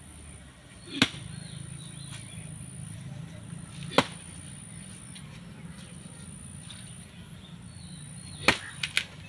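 Axe blows chopping into the ground beside a mud-stuck tractor's front wheel: three heavy strikes about three seconds apart, the last followed quickly by two lighter knocks, over a low steady hum.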